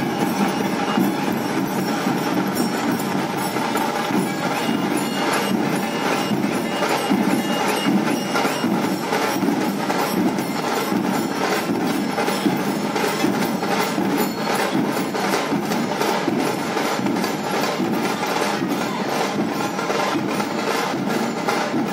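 Nashik dhol band: many large barrel dhol drums beaten together in a loud, dense, steady rhythm, with a bright metallic ring over the drumming.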